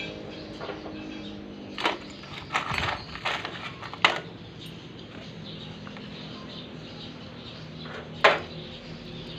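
A handful of sharp knocks and clinks from parts and tools being handled while a ketinting longtail boat engine is reassembled, the loudest one near the end, over a faint steady hum.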